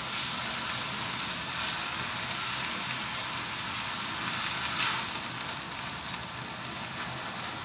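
Vegetables, meatballs, sausage and shrimp sizzling steadily as they are stir-fried in a nonstick wok, stirred and tossed with a spatula. A brief louder clatter of the spatula comes just before five seconds in.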